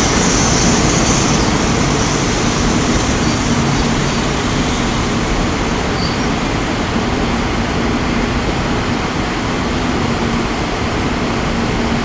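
Seoul Metro 4000-series electric train on an elevated track pulling away, its rear cars running past, then its running noise slowly fading as it draws off. A high hiss dies away about a second in, over steady city traffic noise.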